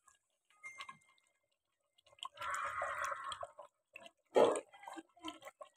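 Wooden spoon working through thick, hot chicken curry in a clay handi: wet, dripping, sloshing sounds, with one louder clunk a little past the middle.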